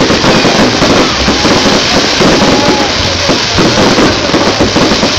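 Fireworks display: a dense, continuous crackling of many small bangs, loud and without a break.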